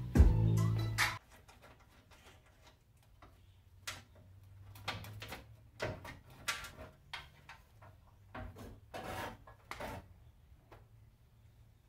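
A short music sting cuts off about a second in. Then come scattered light clicks, knocks and scrapes of hand work on the metal front end of a GMC S15 pickup during teardown.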